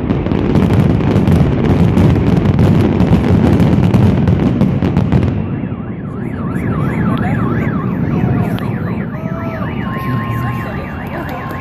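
Dense barrage of firework bangs and crackle that cuts off about halfway through; then car alarms sound, one with a fast up-and-down warbling tone, with a steadier alarm tone joining it.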